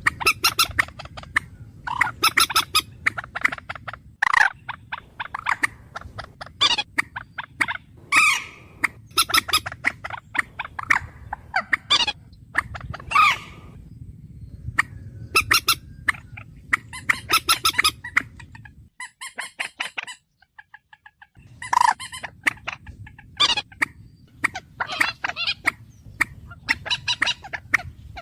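Bird calls, short sharp calls repeated in quick bursts one after another, over a low steady hum that cuts out briefly about two-thirds of the way through.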